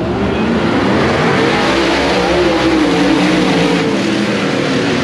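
Several dirt-track race cars running laps on the oval, their engines loud and continuous, the pitch rising and falling as they work through the turns.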